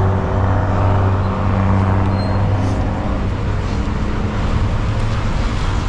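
City bus engine running close by with a steady low hum that weakens about halfway through, over street traffic.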